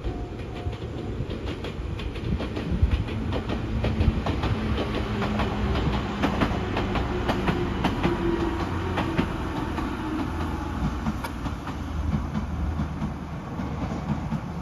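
Hokuriku Railroad Asanogawa Line two-car electric train, set 8801+8811, passing close by: wheels clicking over rail joints above a low rumble. The sound builds over the first few seconds, is loudest in the middle and eases a little as the train goes by.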